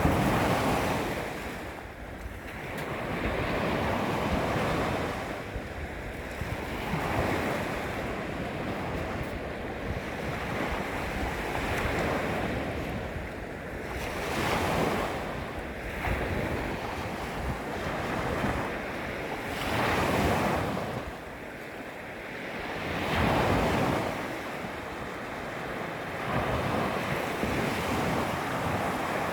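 Small waves lapping against a beach shoreline, each wash swelling and fading every few seconds, with wind rumbling on the microphone.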